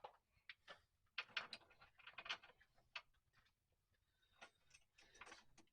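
Faint, irregular clicking and tapping of hand tools and metal parts being worked, in two clusters: about a second in and again near the end.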